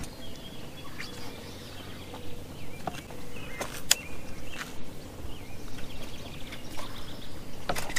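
Open-air ambience with faint bird chirps and a few sharp clicks about three to four seconds in.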